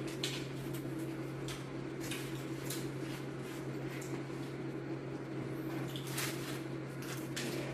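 Close-up eating of crispy fried chicken: irregular crunches and wet chewing and smacking sounds, over a steady low hum.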